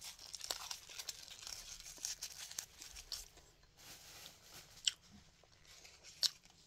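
A person chewing food close to the microphone, with soft crackling and tearing as food is pulled apart in the fingers. Two sharp clicks in the second half are the loudest sounds.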